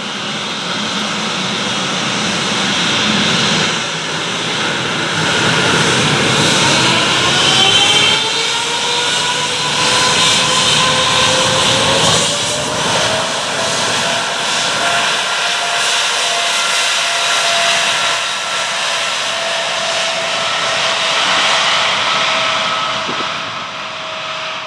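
Boeing 777-300ER's twin GE90-115B turbofans spooling up to takeoff thrust as the jet starts its takeoff roll: a loud, steady jet noise with a whine that rises in pitch over several seconds, then holds level from about halfway through.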